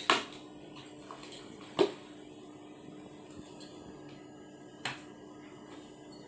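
Scattered sharp clicks and taps, about six in all, of a hair crimper and its packaging being handled and opened, over a faint steady hum.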